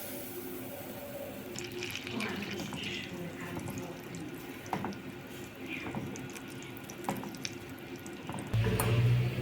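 Water running and splashing at a kitchen sink, with light clicks and clatter. A loud low hum starts near the end.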